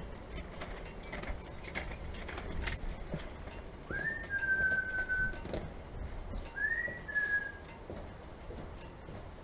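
A key working a front-door lock and the door clicking open, then two long whistled notes, each sweeping up quickly and then held, falling slightly.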